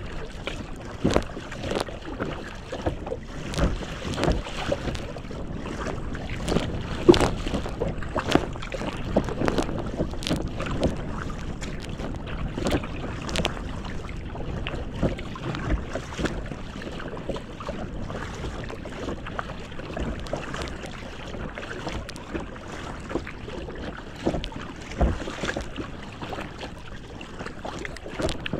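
Lake water splashing and slapping against the bow of a moving kayak in a light chop, in irregular bursts, with wind buffeting the microphone.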